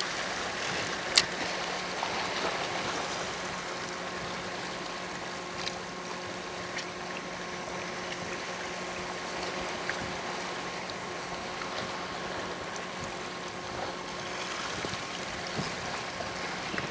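Steady wash of seawater with a faint steady hum underneath that fades out near the end, and one sharp click about a second in.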